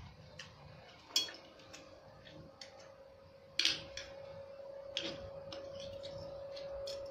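A metal spoon clinking and scraping against a plate, scooping up rice in scattered light clicks, the sharpest about a second in and again past the halfway mark. A faint steady tone hums underneath from about halfway on.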